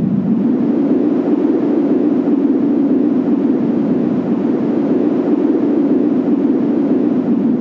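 Wind sound effect: a steady, loud rushing noise. Its pitch rises a little in the first second, holds steady, then sinks again near the end.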